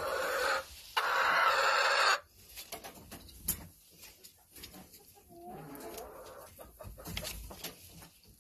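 Domestic hens calling. A loud harsh call about a second in lasts about a second and sounds like a miniature velociraptor. Softer calls follow, with a short sliding note midway.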